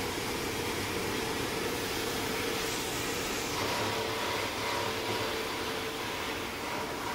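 An aluminium–plastic separation line for medicine blister packs running: a steady whirring machinery noise from its crusher, blowers and cyclones, with a faint steady hum.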